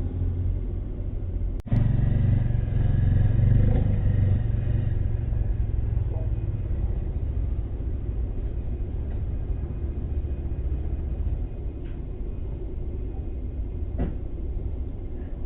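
A low, steady rumble, broken by a sharp click and a brief dropout about one and a half seconds in, then slowly easing off.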